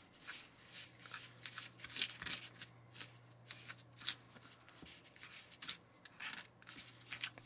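Fingers working crumbly powdered waffle dough in a small plastic tray mold, pressing the powder and water together toward a dough: irregular scratchy rustles with small clicks of fingertips against the plastic.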